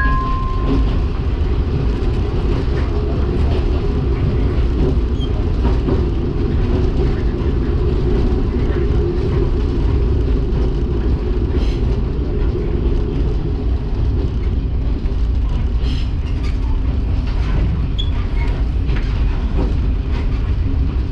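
Diesel railcar running along the line, heard from inside the car: a steady low engine and running-gear rumble with a few faint wheel clicks over rail joints.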